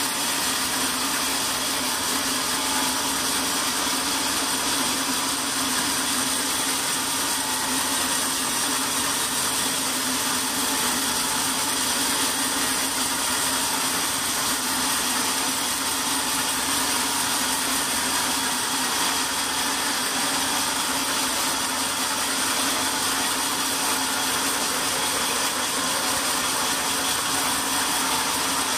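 Large band sawmill's blade running through a log, cutting a long board: a steady sawing hiss with an even hum and high whine that doesn't change.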